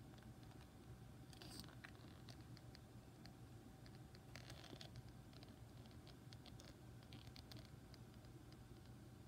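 Near silence: a low steady room hum, with faint scratching of a paper instruction sheet being handled twice and scattered faint ticks.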